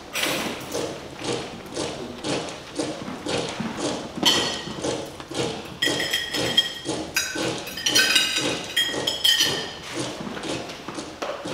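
Steady rhythmic knocking, about two a second, with high squealing tones over it from about four seconds in until near the end.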